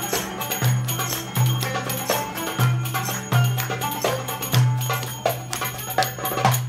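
Middle Eastern ensemble music: an oud plucking over a hand-played frame drum that gives deep booming strokes with jingling rings. The music stops just at the end.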